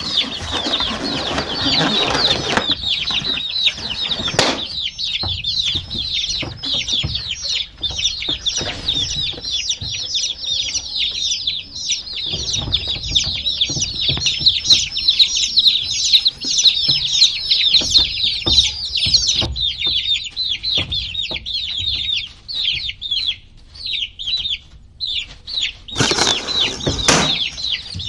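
A brood of baby chicks peeping continuously, a dense chorus of short high, downward-sliding peeps. Bursts of rustling at the start and again near the end.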